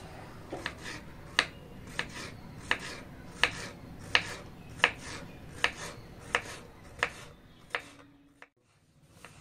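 Kitchen knife slicing a cucumber into rounds on a wooden cutting board: a steady run of crisp chops, about one every 0.7 seconds, stopping shortly before the end.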